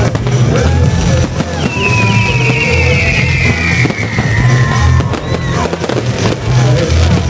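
Fireworks bursting and crackling over loud music with a heavy, pulsing bass beat.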